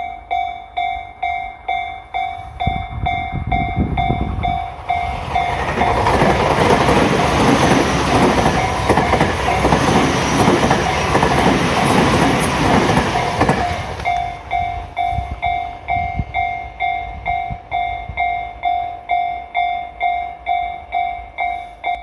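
Level crossing warning bell dinging about twice a second as a Tobu Skytree Line train passes over the crossing. The train's rumble and wheel clatter rise about five seconds in, drown the bell, and fade about fourteen seconds in, leaving the bell ringing on alone.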